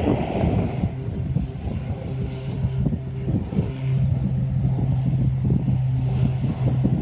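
A steady engine hum that sets in about a second in and holds one even pitch, under wind buffeting the microphone.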